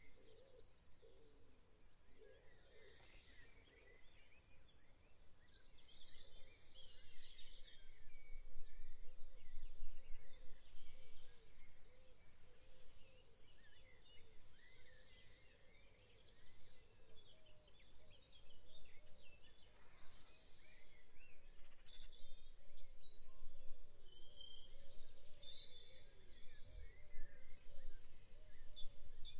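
Spring birdsong: several songbirds singing over each other in fast high trills, chirps and warbled phrases, with a steady low rumble underneath.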